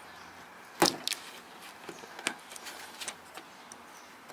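Plastic trim clips and the felt trunk-lid liner of a Honda Accord being worked by hand: a sharp click about a second in, then a few softer clicks and rustles.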